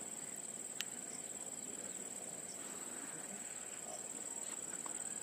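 Faint, steady, high-pitched insect trill, with one light click about a second in.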